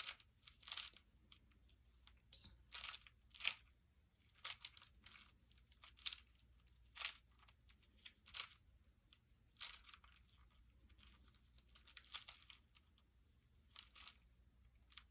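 4x4 Rubik's cube being scrambled by hand: its plastic layers are twisted in faint, short clicking rasps, one every half second to a second or so, with pauses between.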